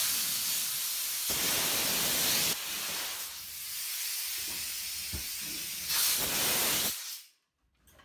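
High-pressure air blasting out of an open SCBA bottle valve in a loud, continuous hiss as the bottle is bled down. The blast eases for a few seconds in the middle, comes back strongly, and dies away about seven seconds in.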